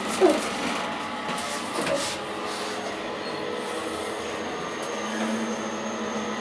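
KONE elevator's doors sliding shut, then the car running downward with a steady hum; a faint high whine joins about three seconds in.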